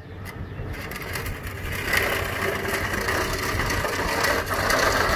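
An old HVAC unit being dragged across the ground, making a rough, continuous scraping that grows louder about two seconds in.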